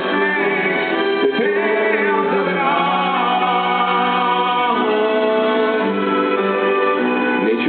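Live music: a singer's voice over sustained instrumental chords, the chords changing twice.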